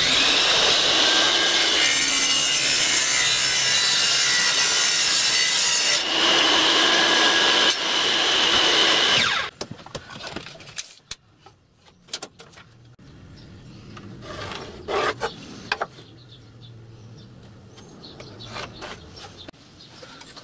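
Bench table saw cutting through a wooden board, with a steady high whine over the cutting noise and a brief dip about six seconds in. It stops suddenly after about nine and a half seconds, and a few quieter knocks and clatters of wood being handled follow.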